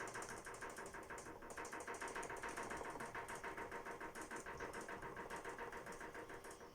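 LG FH2B8WDS7 direct-drive front-loading washing machine on spin, knocking rapidly and evenly, several knocks a second, over a steady motor hum. The owner cannot find the cause and suspects a suspension spring.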